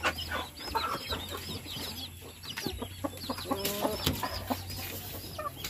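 A flock of native chickens clucking and calling while they feed, with many short, high peeping calls several times a second and one louder, lower squawk just before four seconds in.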